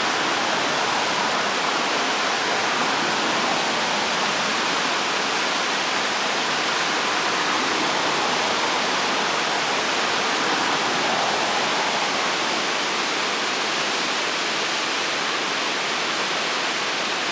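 River whitewater rushing below a low boulder dam: a steady, even roar of churning water with no breaks.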